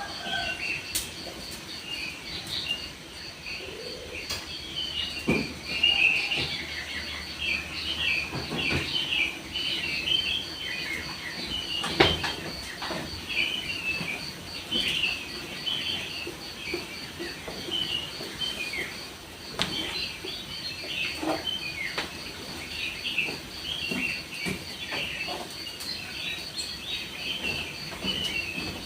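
Small birds chirping continuously, many short calls overlapping, over an insect's steady high pulsing trill. A few sharp knocks break in, the loudest about twelve seconds in.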